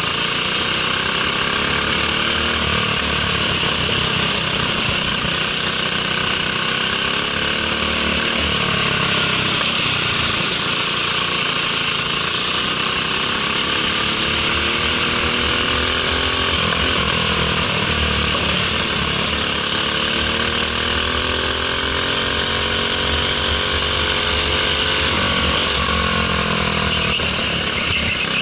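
Briggs & Stratton LO206 four-stroke single-cylinder kart engine heard onboard at racing speed. Its pitch rises and falls again and again as the throttle comes off for the corners and goes back on out of them, over a steady rush of wind noise.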